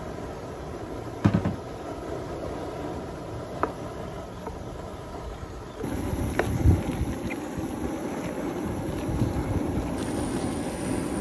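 Ground venison and chopped onions cooking in a large aluminium pot over an outdoor burner turned up high: a steady low rumble with a few sharp knocks of utensils against the pot. The rumble grows louder about six seconds in, as the wooden spoon stirs the steaming meat.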